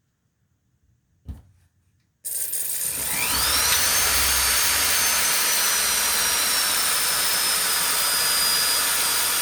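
Small electric drill starting up about two seconds in, its high motor whine rising quickly and then running steadily while the bit bores into a harmonica mouthpiece slider. The pitch sags slowly under the load. The bit is dull and doesn't cut well.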